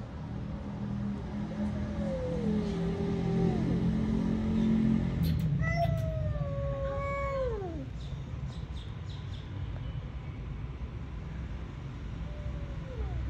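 Two cats in a territorial standoff, growling and caterwauling at each other: a low growl swells over the first few seconds, with drawn-out yowls that sink in pitch, the longest and loudest about six seconds in and a short one near the end.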